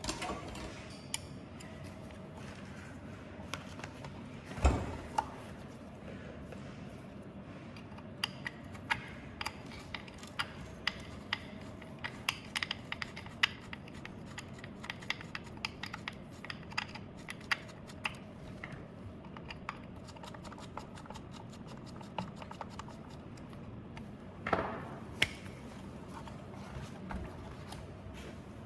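Hand tools and small metal parts of a belt sander clicking and clattering during disassembly, with runs of quick irregular clicks through the middle. Two louder knocks come near the start and near the end.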